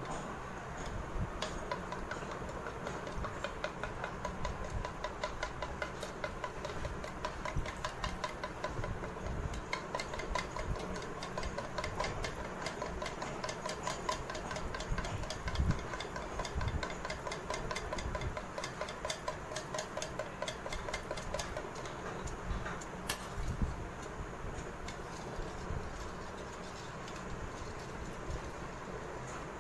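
Metal spoon whisking an egg and milk mixture by hand in a plastic bowl: a rapid, steady clicking of spoon against bowl with a faint sloshing.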